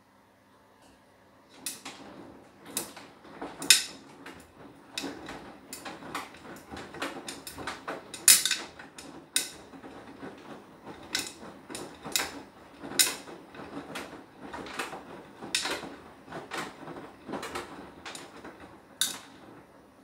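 Beko WTK104121W washing machine's drum turning the wet load during its anti-allergy wash cycle, with irregular sharp clatters and knocks, roughly one or two a second. The tumble starts about a second and a half in and stops near the end, as the drum pauses between turns.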